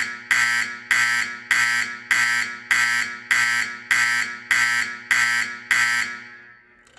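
Simplex 4050 AC vibrating fire alarm horn sounding in march time at 90 beats a minute: about ten evenly spaced blasts, then it stops about six seconds in and the sound fades away.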